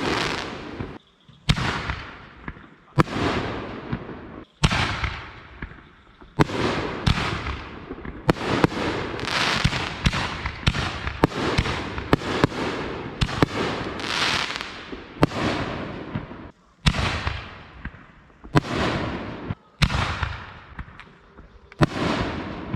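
Consumer fireworks going off one after another: sharp bangs, each followed by a fading crackle. The bangs come every second or two, closer together in the middle.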